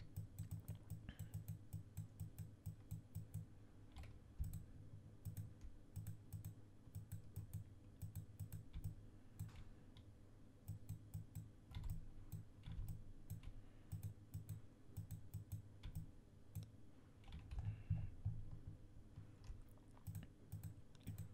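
Faint, irregular clicking of a computer mouse and keyboard, several clicks a second with pauses, over a faint steady hum.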